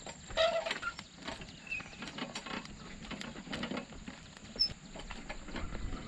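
Metal wheelbarrow loaded with corn cobs pushed over rough dirt ground: irregular rattling and clicking of the barrow and footsteps, with a short squeak about half a second in.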